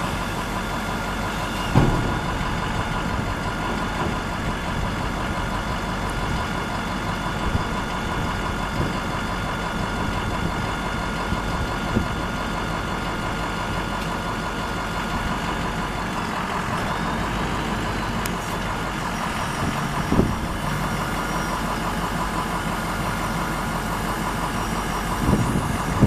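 The 6.0L V8 diesel of a 2004 Ford F750 bucket truck idles steadily while the aerial boom is raised. Two short knocks come through, about two seconds in and again about twenty seconds in.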